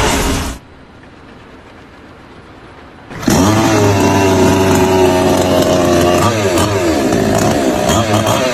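A small petrol engine running loud, its pitch wavering up and down as it revs. It starts abruptly about three seconds in, after a quieter stretch of steady background noise.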